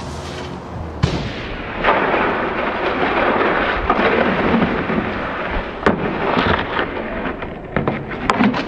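A snowboard scraping along a sidewalk over thin snow and patches of bare pavement: a rough, steady grinding noise that starts suddenly about a second in, with scattered clicks and knocks.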